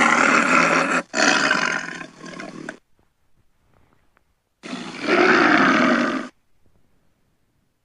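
Big cat roaring: three long, loud roars, the first two back to back and the third after a pause of about two seconds. Each starts and stops abruptly, like a dubbed-in sound effect, and it stands in for a leopard outside the tent.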